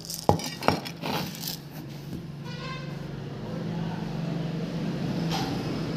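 Metal seed tin being handled and set down, knocking sharply twice on a hard surface, with a little rustling after. A steady low hum runs underneath and grows louder in the second half.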